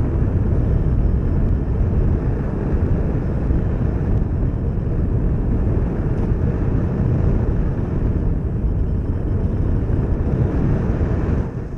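Steady rush of air mixed with the RS2205 brushless motor and propeller of a foamboard FPV plane in flight, picked up by its onboard camera's microphone. The noise falls off sharply near the end.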